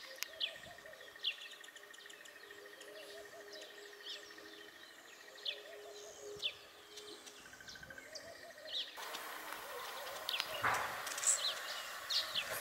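Wild birds calling outdoors: short, high downward chirps repeating roughly once a second over a faint steady high tone, with background noise rising about two-thirds of the way in.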